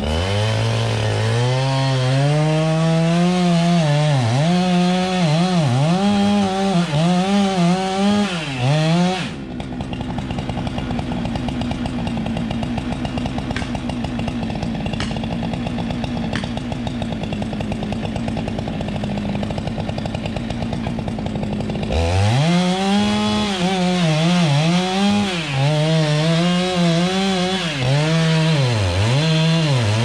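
Two-stroke chainsaw cutting silver maple wood, its engine note dipping again and again as the chain bites and then climbing back up. About nine seconds in, the sound switches abruptly to a steadier, more muffled engine note. Near the end the dipping of a saw under load in the cut returns.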